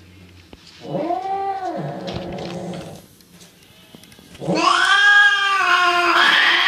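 Cat yowling during mating: a rising-and-falling wail about a second long, then a louder, longer yowl starting about four and a half seconds in that climbs in pitch near the end.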